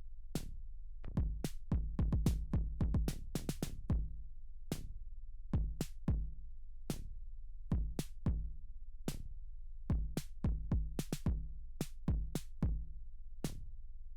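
Background electronic music with a drum-machine beat over a steady low bass.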